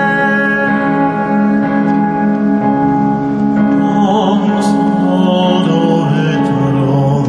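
Live ballad accompaniment of sustained strings and piano, with a man's voice coming in about four seconds in, singing with a wavering vibrato in classical-crossover style.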